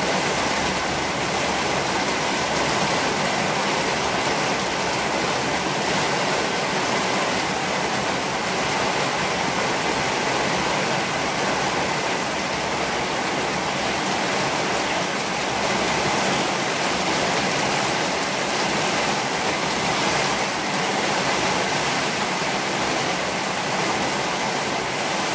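Heavy rain falling steadily: a loud, even hiss with no thunder claps or other sudden sounds.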